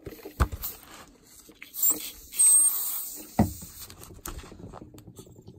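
Rebuilt Linhai ATV water pump under a compressed-air leak test: a couple of knocks as it is handled, and a hiss lasting about a second, two seconds in. Faint crackling of soap foam follows while the new mechanical seal is checked for leaks.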